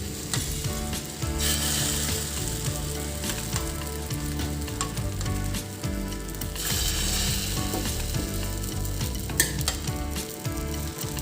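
Bread sandwiches sizzling in ghee and oil on a tawa over a low flame, with small crackles throughout. The sizzle swells twice, about a second and a half in and again around seven seconds, and there is one sharp click near the end.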